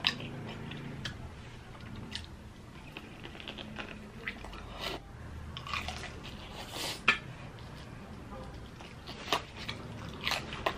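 Crunching and chewing as bites are taken from a piece of crispy Jollibee Chickenjoy fried chicken, the breading crackling in scattered short bursts, the loudest about seven seconds in.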